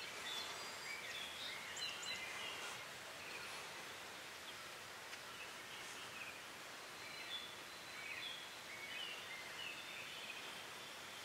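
Small birds chirping and singing in short, repeated phrases over a steady outdoor hiss.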